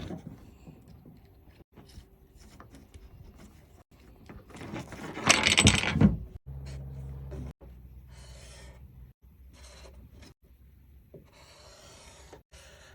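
Hand tools working on a pickup's truck-bed switch and wiring: rubbing, scraping and small knocks, broken by abrupt cuts, with one loud harsh scrape lasting about a second and a half near the middle.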